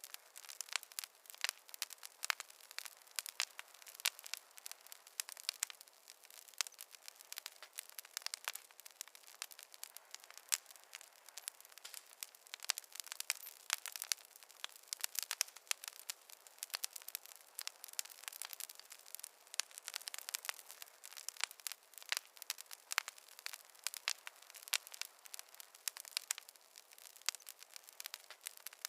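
Fireplace fire crackling steadily, with many small sharp pops and snaps coming irregularly over a soft hiss and no low rumble.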